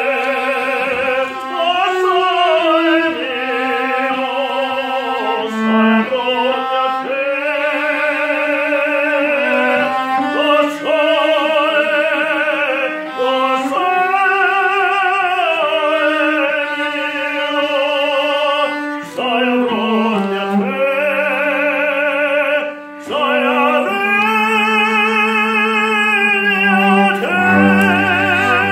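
A man singing in operatic style with a strong vibrato, accompanied by a cello playing held lower notes beneath the voice.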